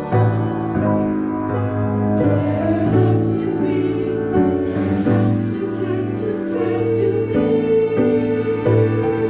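Women's treble choir singing a choral piece in several parts, sustained chords moving together, with a few crisp shared consonants.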